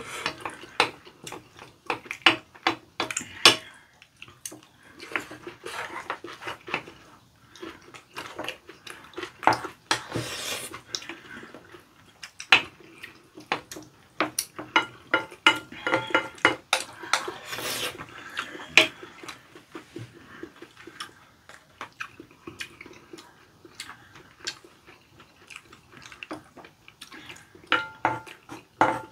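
Spoons and chopsticks tapping and scraping against ceramic bowls as two people eat curry rice. Chewing and mouth sounds come between the clinks.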